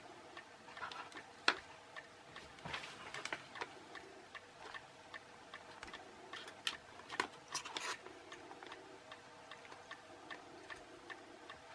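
Faint, irregular small clicks and scratches of resistor wire leads being handled, pushed through the holes of a small printed circuit board and bent over.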